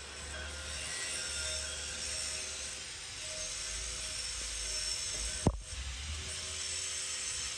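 Gas torch flame hissing steadily as a radiator core header is soldered, with a low hum underneath. There is one sharp pop about five and a half seconds in.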